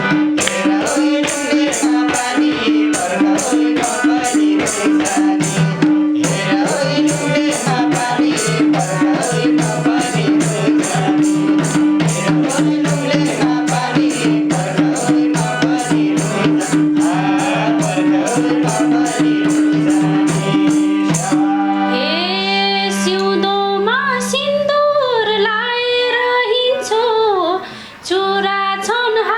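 Nepali dohori folk music between sung verses: fast, dense percussion with jingling over two steady held drone notes, which drops away about 21 seconds in, leaving a melody line sliding up and down over lighter backing.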